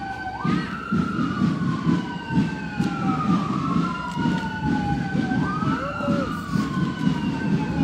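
Emergency vehicle sirens wailing, two of them overlapping, each sweeping slowly up and down in pitch every few seconds, over a steady low rumble.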